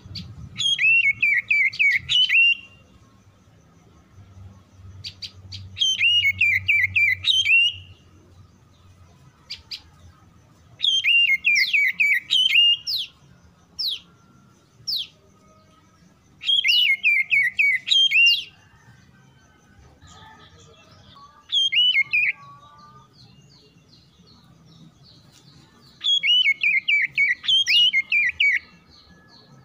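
Oriental magpie-robin song: a loud phrase of rapid, repeated falling whistled notes about two seconds long, given five times with pauses of several seconds between. A few single sharp notes and some softer, lower chirps come in the gaps.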